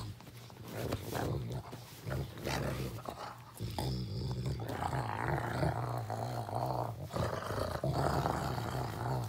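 Dog growling and grumbling low while being handled, fainter for the first few seconds and steadier and louder from about four seconds in.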